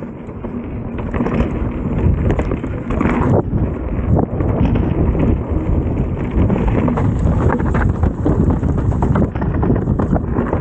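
Mountain bike ridden chainless down a rough trail: tyres and frame rattling and clattering irregularly over rocks and roots, with wind buffeting the microphone.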